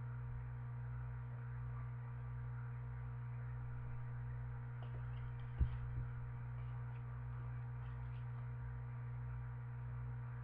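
Steady low electrical hum with faint room tone, and one soft knock about halfway through.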